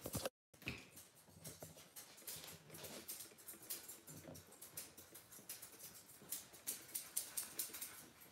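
A Barbet dog panting softly while it is handled on a grooming table, with faint rustling and light clicks. The sound drops out completely for a moment just after it begins.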